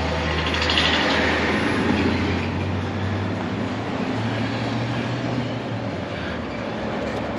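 Steady rumble of a passing vehicle, with a low engine hum and a rush of noise that swells about a second in and then eases.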